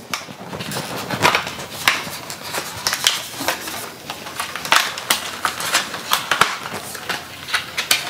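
Hands opening a RAM retail box and pulling out its clear plastic packaging tray: an irregular run of clicks, crinkles and scrapes of cardboard and plastic.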